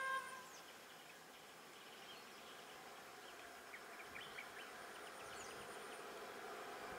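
Faint roadside ambience of insects, with a steady high buzz and scattered short bird chirps. A vehicle horn cuts off right at the start. A vehicle's running noise slowly builds toward the end.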